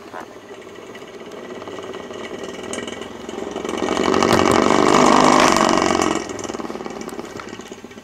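Small fan motor from an Airworks fan heater running with its blade set on a bare desk, vibrating and rattling against the desktop because the blade set is slightly out of balance. The rattle builds, is loudest in the middle, then drops off suddenly a little after six seconds in.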